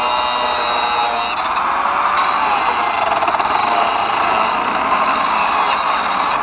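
Angle grinder cutting through a steel mounting bracket on a motorcycle frame. It runs loud and steady, with a whine that wavers in pitch as the disc bites into the metal.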